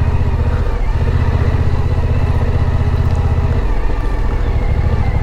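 Suzuki V-Strom motorcycle engine running at low speed on a muddy dirt road, heard from the rider's seat; the engine note drops slightly a little past halfway.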